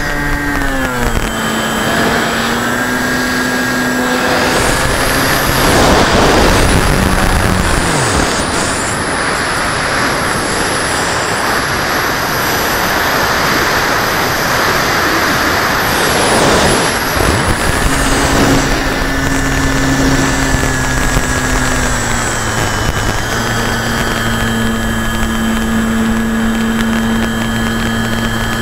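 Motor and propeller of a radio-controlled FPV model airplane, heard from its onboard camera: a steady whine that drops in pitch about a second in. Rushing air noise swells over it through the middle, then the whine comes back and steps down again near the end.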